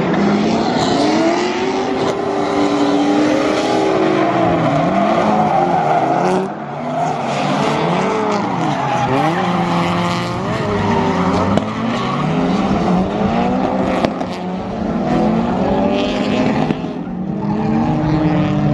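Several drift cars sliding together, their engines revving up and down on and off the throttle, with tyre squeal and skidding.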